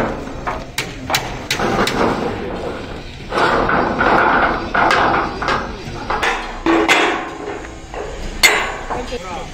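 Heavy steel channel sections being handled and set against a truck chassis rail: a series of separate sharp metal knocks and clanks, the loudest a little before the end.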